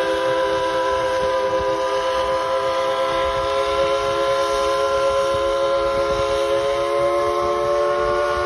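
Dollywood Express steam train heard from an open passenger car rounding a curve: a steady, high-pitched chord of several tones is held throughout and slowly rises in pitch, over the rumble of the cars.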